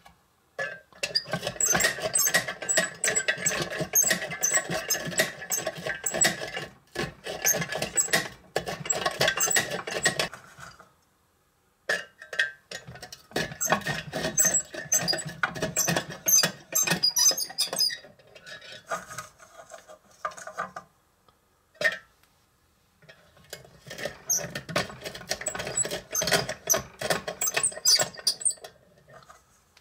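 Vintage hand-cranked rotary nut chopper grinding pecans: rapid crunching and clicking of the nuts in the blades with squeaks from the crank, in long spells of cranking broken by short pauses about 11 and 22 seconds in.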